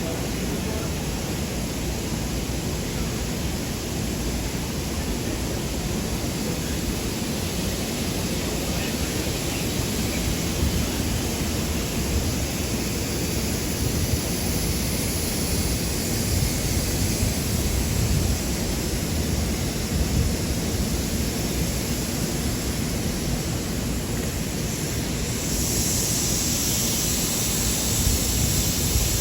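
Steady city street ambience: a dense wash of traffic rumble and hiss, with a brighter hiss joining about 26 seconds in.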